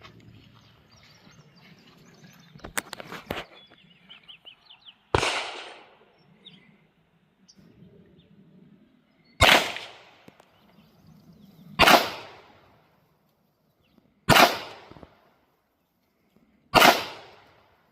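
Five pistol shots from a 9mm Canik TTI Combat, fired slowly about two and a half seconds apart, each with a short echoing tail. A few quick clicks of handling come about three seconds in, before the first shot.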